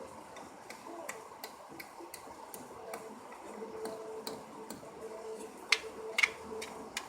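Irregular light clicks and taps, with two louder knocks about six seconds in, over a faint steady hum.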